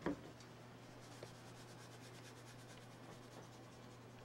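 Seasoning shaken from a small jar over raw chicken breasts: a faint, fast, even rustle, with a light knock at the start.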